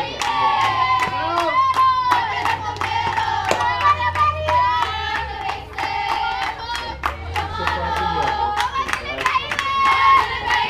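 A group of high young voices chanting a sing-song cheer together, with a steady beat of hand claps.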